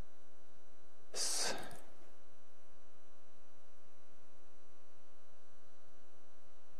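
A single short breath into the presenter's microphone about a second in, over a faint steady electrical hum from the sound system.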